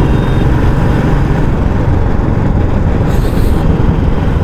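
Royal Enfield Classic 350's single-cylinder engine running steadily through its stock exhaust while the motorcycle is ridden, with road and wind noise.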